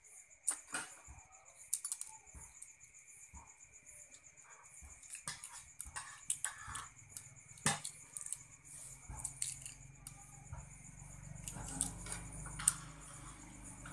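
Shell of a boiled balut (duck egg) being peeled by hand: irregular small crackles and clicks of the shell breaking, with a few sharper clicks.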